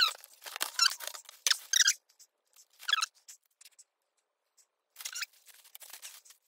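Cardboard box and plastic bag being handled: short bursts of crinkling and scraping, thickest in the first two seconds, once more about three seconds in, and again near the end.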